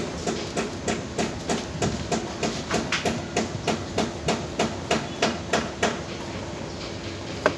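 Rapid, evenly spaced clicking, about three clicks a second, that stops about six seconds in, followed by one sharp, louder click near the end.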